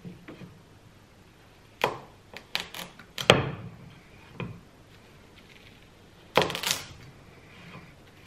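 Kitchen knife chopping through butternut squash onto a wooden cutting board: separate sharp chops, with a loud run of them just past the middle and another near the end.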